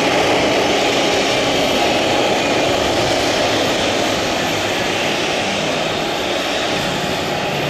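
Boeing 737-800's CFM56-7B turbofan engines at taxi idle as the jet rolls past close by: a steady rushing jet noise that eases slightly near the end.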